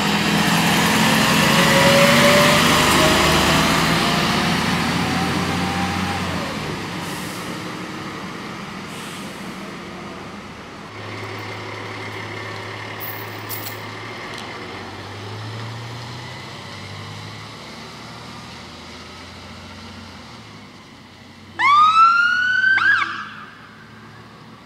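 Volvo fire engine's diesel engine pulling away, its note rising as it accelerates, then fading to a low rumble as it drives off. Near the end a siren gives a short, loud whoop of a couple of rising sweeps lasting about a second.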